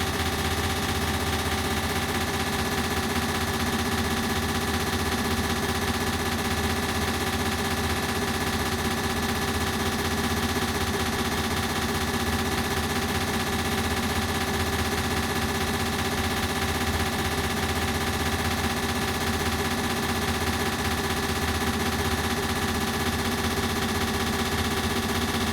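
Ceiling fan running steadily, its sound put through an echo effect that turns it into a dense, rapid rattle.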